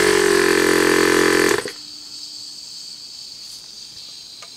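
A short loud blast of compressed air let out of the tank's hose fitting: a pitched hiss lasting about a second and a half that cuts off suddenly. After it, a steady high trill of crickets goes on.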